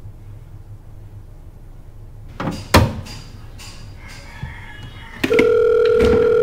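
A couple of sharp knocks about two and a half seconds in, then a loud, steady electronic tone starts near the end and holds unbroken, like a phone line tone or an appliance beep.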